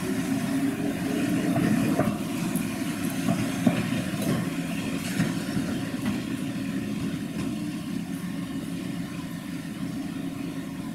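Eizan Electric Railway 700-series single-car electric train pulling away, its motors humming and its wheels knocking over rail joints and points a few times in the first half. The sound slowly fades as the train draws off.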